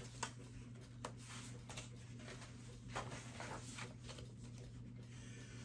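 Quiet room with a steady low hum, broken by a few soft taps and paper rustles as a picture book's pages are handled and turned.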